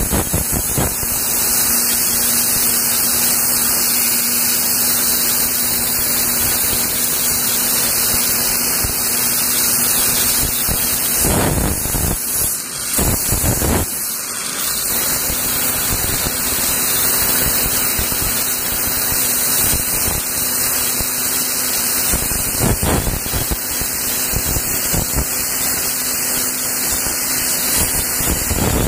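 Dental air polisher spraying bioglass powder and water onto teeth to strip tea and coffee stains: a steady, loud hiss with a faint low hum under it. The hiss drops and wavers briefly around the middle, then carries on.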